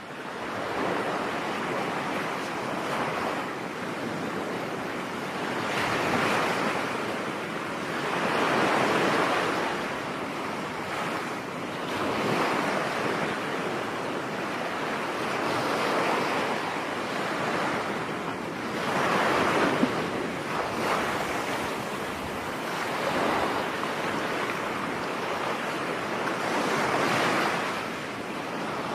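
Ocean waves breaking and washing on a beach, each swell building and falling away every few seconds, with a steady wash of surf between them.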